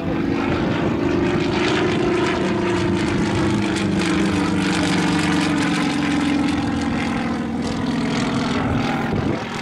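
Yak-52's nine-cylinder M-14P radial engine and propeller running in a low aerobatic pass, a loud steady drone whose pitch sinks slightly as the plane goes by.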